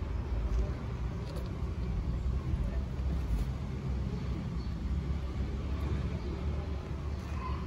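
Steady low rumble of distant street traffic.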